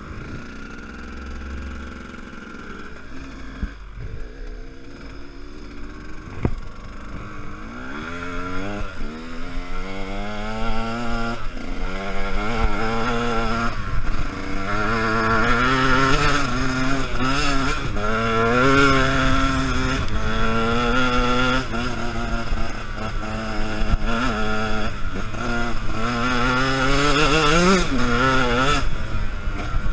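Enduro dirt bike engine, low and steady for the first several seconds, then revving up and down over and over, louder from about ten seconds in.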